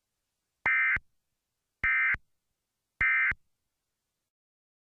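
Emergency Alert System end-of-message (EOM) code: three short bursts of digital data tones about a second apart, signalling the end of the alert.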